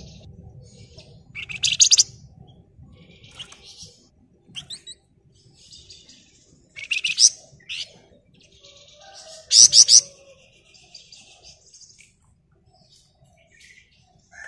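Flamboyan (wergan Jawa) songbird singing in short bursts of rapid, harsh chattering trills, with quieter chirps in between. The three loudest bursts come about 2, 7 and 10 seconds in.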